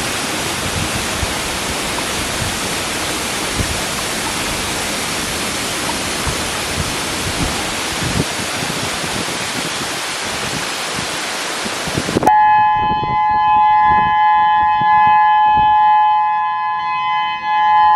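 Waterfall rushing, a steady, loud wash of falling water. About twelve seconds in it cuts off abruptly, and a loud, steady high drone of several held tones follows.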